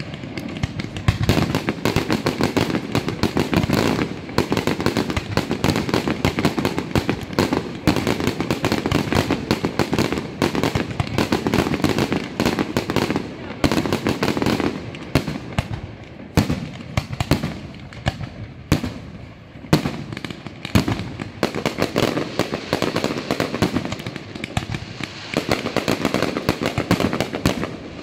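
Aerial fireworks display: a dense, unbroken run of bangs and crackling from shells bursting overhead.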